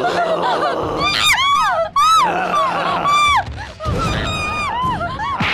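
Several people screaming in short, high shrieks that fall in pitch, one after another, over background music.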